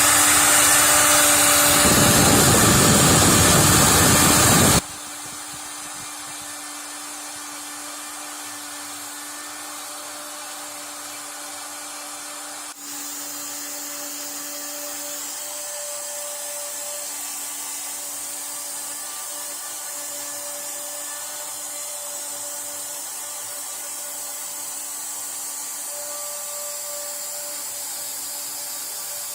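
CNC router spindle running steadily with a constant whine while a conical engraving bit carves solid ash. Very loud for about the first five seconds, then it drops abruptly to a much quieter steady running sound.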